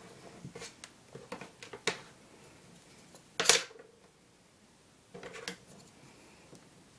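A plastic ruler and pencil handled on a sheet of paper on a tabletop: scattered light taps and scrapes as the ruler is moved and set down, with one much louder sharp sound about three and a half seconds in and a short run of scrapes about five seconds in.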